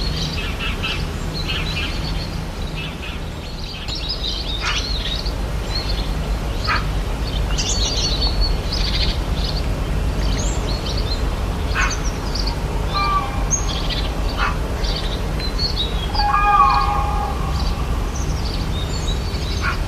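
Rainforest ambience: many birds chirping and calling at once over a steady low rumble. In the second half a louder call of several held tones comes twice.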